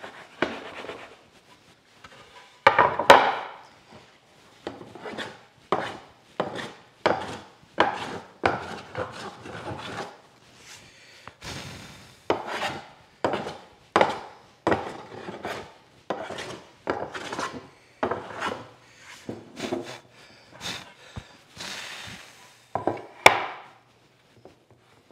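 A wooden board rubbed back and forth on a wooden workbench top, a dry scrape about one and a half times a second, with the loudest scrapes about three seconds in and near the end. This is the dirty-bench test for finding the high spots that a board not yet flat rocks on.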